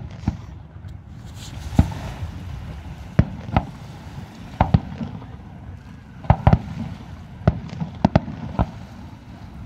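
Aerial firework shells bursting: about a dozen sharp bangs at irregular intervals, several in quick pairs.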